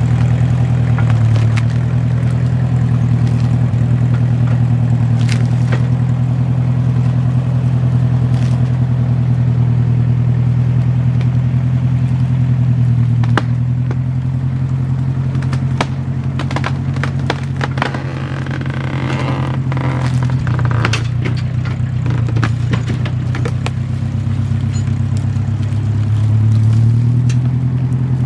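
Massey Ferguson tractor engine running steadily under load while skidding a felled elm, its pitch dipping slightly now and then. Scattered sharp cracks and snaps, thickest in the second half, as the tree drags through brush.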